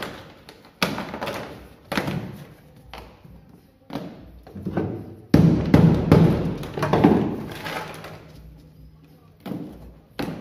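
Hammer blows knocking frozen bitumen sound-deadening off a Subaru BRAT's sheet-steel floor pan, the deadening made brittle with pipe-freezer spray so it breaks away. Irregular thuds about once a second, heaviest around the middle.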